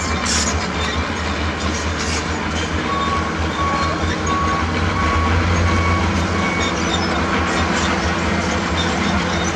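Heavy diesel construction machinery running with a steady low drone. A backup alarm beeps about twice a second from about three seconds in, the sign of a machine reversing.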